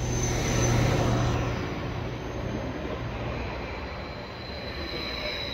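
Transport for Wales passenger train passing close by on the track, wheels and running gear rumbling with a low hum. It is loudest about a second in, then fades as it moves away.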